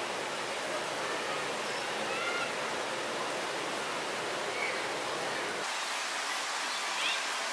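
Steady outdoor hiss of wind, with a few faint, short high chirps.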